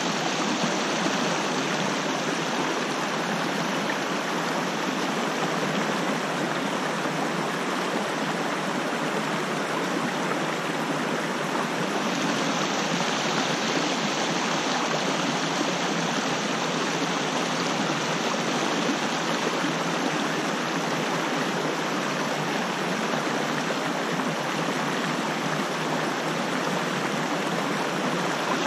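A small creek rushing over a rocky ledge and riffle: a steady, even rush of whitewater.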